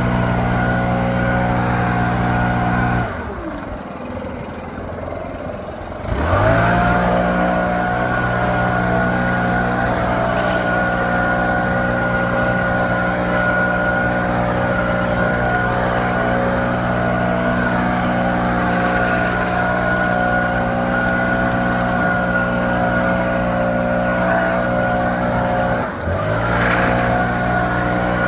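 Stihl BR700 gas backpack leaf blower running at full throttle with a steady whine; about three seconds in it drops back to idle, then revs back up about three seconds later, and near the end it briefly dips and revs up again.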